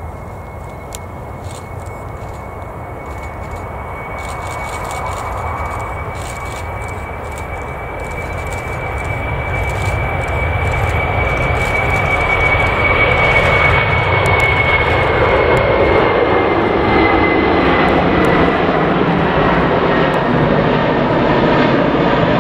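Boeing 747-400 jet engines at takeoff thrust as the airliner lifts off and climbs past: a deep rumble and roar that grows louder over the first dozen seconds, then holds loud. A steady high engine whine runs through it and drops slightly in pitch in the second half as the aircraft goes by.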